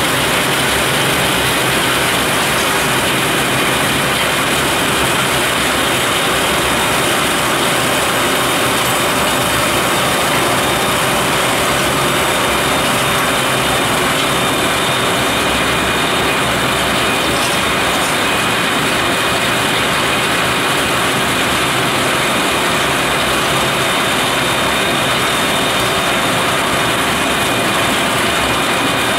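RhB Xrotmt 95403 rotary railway snow blower running steadily while it throws snow: a loud, unbroken mechanical noise with a few faint steady tones in it.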